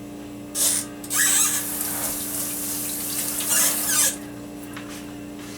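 Kitchen tap running into the sink as hands are washed under it: a short splash about half a second in, then about three seconds of running water that stops about four seconds in.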